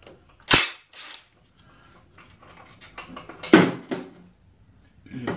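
Cordless impact wrench firing two short bursts about three seconds apart, undoing bolts.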